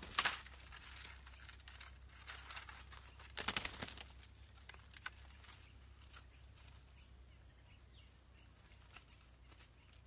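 Two brief bouts of faint rustling and fluttering among leafy branches where red-breasted parakeets perch, one at the start and one about three and a half seconds in, then a few faint short chirps.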